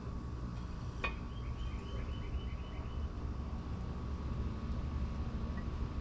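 A concrete block knocks once as it is set down on the stack, followed by a short bird trill of quick repeated chirps, over a steady low background rumble.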